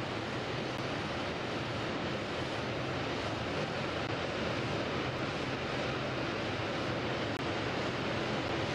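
Steady industrial din of a steelworks: an even rushing noise with a faint low hum beneath it and no distinct knocks or changes.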